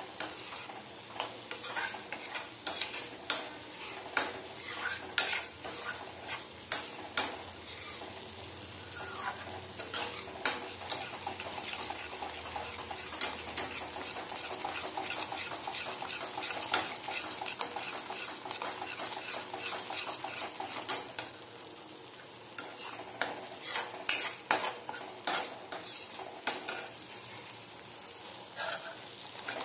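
A spoon stirring and scraping thick masala paste around a steel kadai, knocking against the pan one or two times a second over a steady frying sizzle, with a short pause in the stirring a little past two-thirds of the way through. The masala is being fried in oil until the oil separates.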